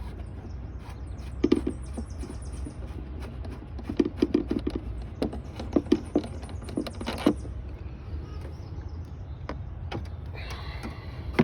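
Socket ratchet clicking in short bursts as a 10 mm bolt is backed out of a thermostat housing, with a few metal taps, over a steady low hum; a brief scrape near the end.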